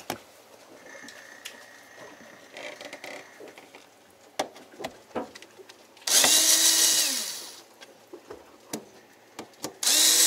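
Cordless drill-driver running twice in short bursts of about a second and a half, the motor whining up to speed, holding and winding down, as fasteners are backed out; the second burst comes near the end. Faint clicks and knocks of handling in between.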